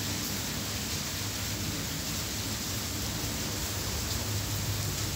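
Steady rain falling on a wet street as a heavy shower eases, heard as an even hiss. A low hum grows slightly toward the end.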